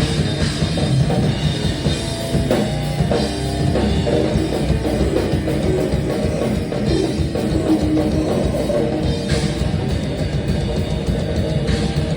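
A band playing loud, heavy rock music, with the drum kit prominent under the guitars and bass.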